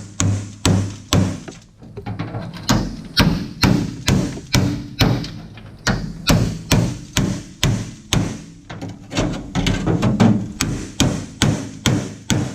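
Repeated hammer blows on the truck cab's sheet-steel door panel, about two to three strikes a second with a few short pauses, each leaving a low metallic ring, as the rusted, spot-welded section is knocked and pried loose.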